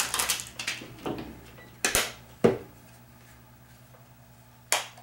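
Handling noise from small hard objects: light clicks and rustling, then two sharp knocks about two seconds in and another click near the end.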